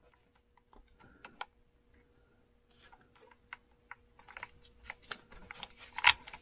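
Hex driver and small metal parts clicking and tapping at the motor mount and pinion gear of an RC motorcycle: scattered light clicks that grow busier and louder toward the end.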